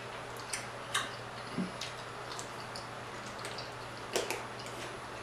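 Close-up eating sounds: a handful of soft clicks and wet smacks from chewing and a plastic fork on the food, over a steady low hum.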